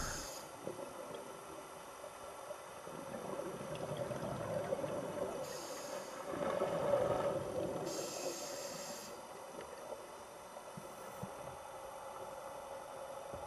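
Underwater sound of a scuba diver breathing through a regulator: short hissing inhalations every few seconds and gurgling exhaled bubbles, over a faint steady hum.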